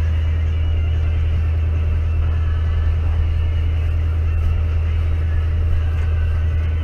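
Fishing boat's engine running with a steady low drone, with faint chatter of other anglers behind it.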